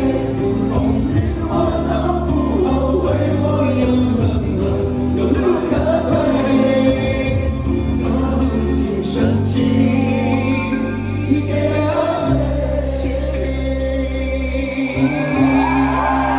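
Live pop band music with several voices singing together over a sustained bass line.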